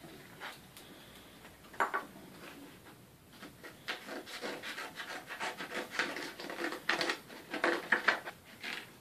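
Scissors cutting through stiff paper: a couple of single clicks, then from about three seconds in a steady run of short snips, a few a second.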